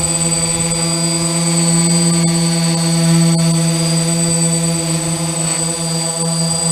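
DJI F450 Flame Wheel quadcopter's brushless motors and propellers buzzing steadily in flight, a low pitched hum with a thin high whine above it.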